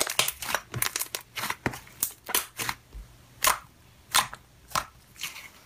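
Thick slime being squeezed and kneaded by hand, giving a string of irregular sharp pops and clicks with short quiet gaps between them.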